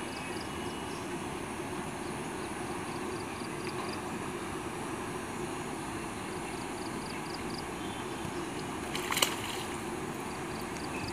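A short splash at the surface of a still pond about nine seconds in, at the line of a bamboo hook-fishing rod, over a steady outdoor background rumble with faint runs of quick high chirps.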